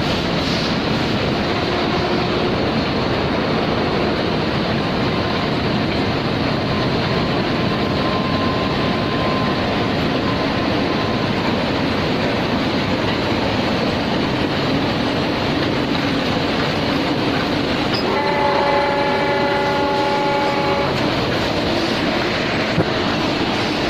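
Uroko rotary veneer lathe peeling a log, a loud, steady, dense mechanical noise. About 18 seconds in, a pitched tone with several overtones sounds over it for about three seconds.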